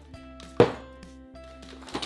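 Background music, with one sharp knock about half a second in and a softer knock near the end: small toy items being set down as they are unloaded from a toy shopping cart.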